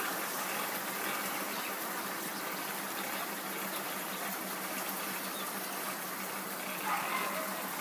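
Steady rush of moving floodwater, a continuous gushing noise.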